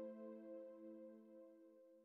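Background ambient music: one held chord of steady tones, fading out slowly.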